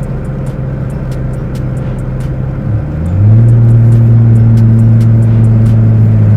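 Dodge Charger's V6 engine running on the move. About three seconds in, the drone shifts in pitch and becomes louder, then holds steady.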